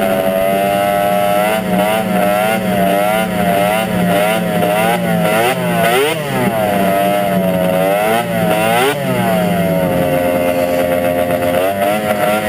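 A 700 cc three-cylinder two-stroke pro-stock race snowmobile running at part throttle, its engine note wavering up and down with the throttle, with a few quick rises and falls around the middle.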